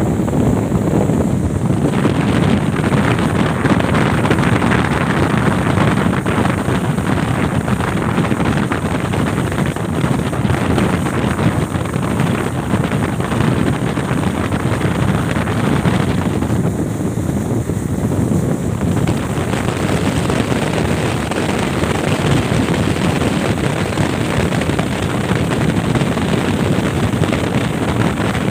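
Speedboat running at speed: a steady engine drone mixed with water rushing past the hull and wind buffeting the microphone. The higher hiss thins briefly about two-thirds of the way through.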